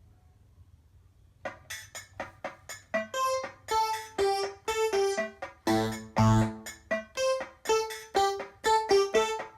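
Electronic keyboard played by hand: a quick melody of short notes that strike and die away, about three a second, starting about a second and a half in, with low bass notes joining around the middle.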